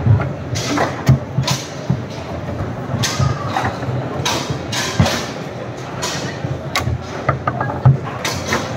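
Foosball being played: sharp, irregular clacks and knocks of the ball striking the plastic players and table walls and of the rods being worked, a few of them louder than the rest, over a steady background din.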